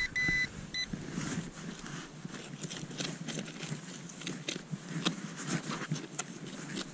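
A metal-detecting pinpointer gives three or four short, high, steady beeps in the first second, signalling metal near its tip. Then gloved hands scrape and crumble soil in the dug hole, a run of irregular soft crackles and scrapes.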